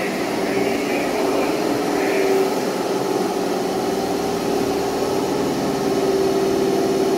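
Osaka Metro Sakaisuji Line subway train at the underground platform, a steady mechanical hum and rumble with a few held low tones, growing slightly louder toward the end.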